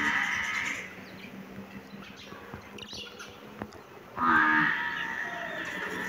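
Budgerigars chattering and warbling: a dense run of chirps at the start, a quieter spell with a few sharp clicks, then a louder burst of warbling chatter about four seconds in that keeps going.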